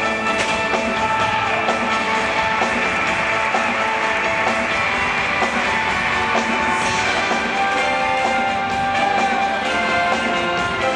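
Rock-style show music with guitar and a steady drum beat.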